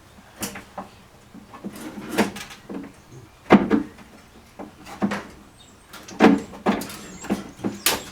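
Irregular sharp knocks and clicks of hand tools and metal parts working on a car door, about a dozen strikes, the loudest about three and a half seconds in.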